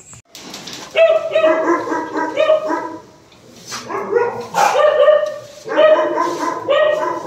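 Dogs barking and yelping in three spells: the first starts about a second in, the second around four seconds in, and the third runs to the end.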